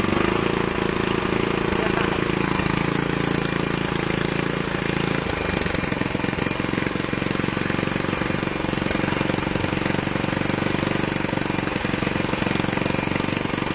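Tecumseh 7–8 hp horizontal-shaft single-cylinder engine running steadily on its freshly rebuilt carburetor, its note shifting slightly about five seconds in.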